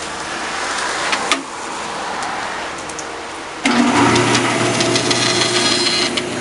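Delta bandsaw's electric motor switched on a little past halfway, then running with a steady hum; before that, a few handling clicks and a sharp knock about a second in.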